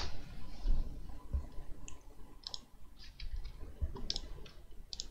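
Computer mouse and keyboard clicking: a handful of short, separate clicks scattered over a few seconds, with a faint low rumble underneath.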